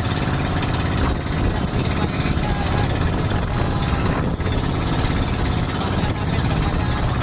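Motor of a wooden outrigger fishing boat running steadily under way, a loud, rapid, even beat.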